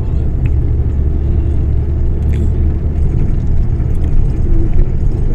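Steady low rumble of a moving road vehicle, with no speech over it.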